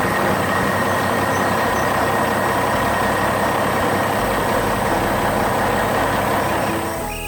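Heavy vehicle engine sound effect running steadily with a low rumble, easing off near the end.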